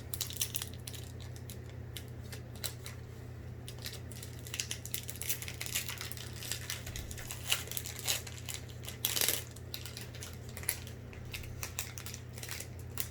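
Foil Pokémon card booster pack crinkling as it is torn open, then the cards being handled and slid through the hands, a run of short crackles and clicks with a longer rustle about nine seconds in. A steady low hum sits underneath.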